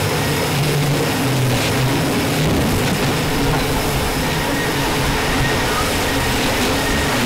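Rhaetian Railway Bernina Express train running, heard from inside a carriage at an open window: a steady, loud rolling noise of wheels on the track.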